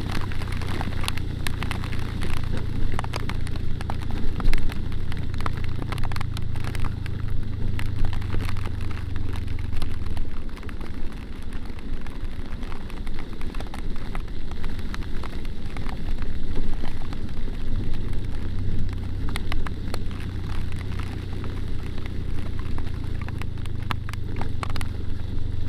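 Motorcycle engine running steadily while riding in heavy rain, with raindrops spattering and ticking on the camera. About ten seconds in, the engine note falls away for several seconds, then comes back.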